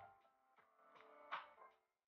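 Faint background music: a few soft, separate notes that start sharply and ring briefly.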